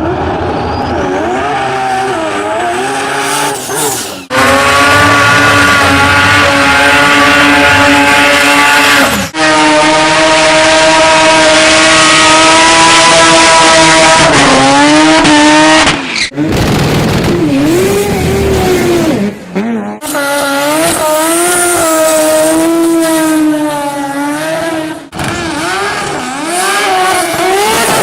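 Rotary car engines running at high revs in a run of short clips cut hard one after another. The note holds steady in some clips and rises and falls with the throttle in others.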